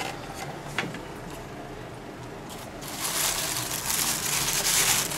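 A couple of light plastic clicks, then from about three seconds in a loud crinkling rustle of tissue-paper nesting being moved inside a plastic hamster pod.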